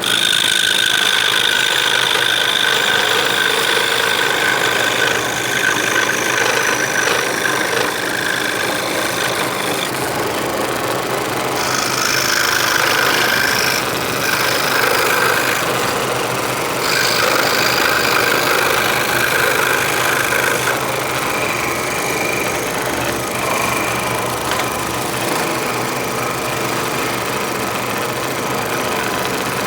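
Scroll saw running, its reciprocating blade cutting wood steadily. A high cutting tone comes and goes and changes pitch several times as the cut proceeds.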